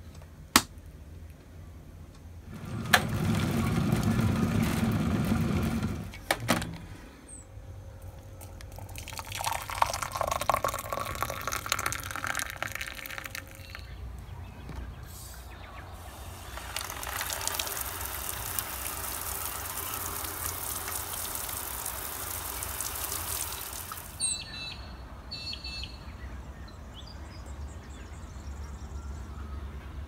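A series of morning sounds: a few sharp clicks and a brief rush of noise, water running for a few seconds, then an outdoor shower running as a steady hiss for about seven seconds before cutting off suddenly. Afterwards a few faint, high bird chirps.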